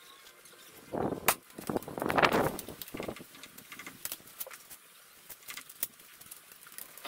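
Spring-piston break-barrel air rifle firing once with a sharp report about a second in, then the barrel being broken open and the spring cocked with a longer mechanical creak and clunk, followed by a few small clicks of a pellet being loaded and the action handled.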